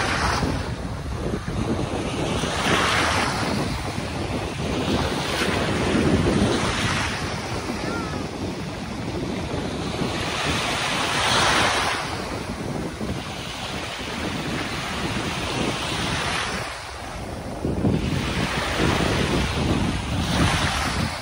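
Small waves washing onto a sandy beach, swelling every few seconds, with wind buffeting the microphone.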